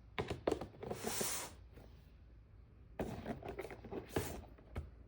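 Plastic packaging being handled and crinkled open, in two spells of rustling with small sharp clicks, the first, with a brief hissing crinkle about a second in, the louder.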